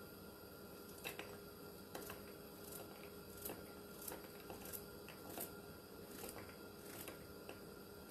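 A knife slicing a yellow summer squash held in the hand, the pieces dropping into a glass pie plate: faint, short clicks about once or twice a second.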